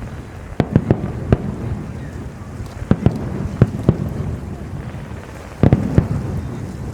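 Aerial fireworks bursting with sharp cracks and booms in three quick clusters, about half a second in, around three seconds in and near the end. A low rumble carries on between the bursts.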